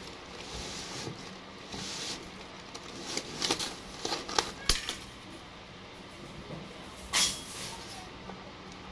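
Thin steel baling wires being pulled off a plastic-wrapped clothing bale: scattered scrapes and clicks of wire, with a louder rustling scrape about seven seconds in.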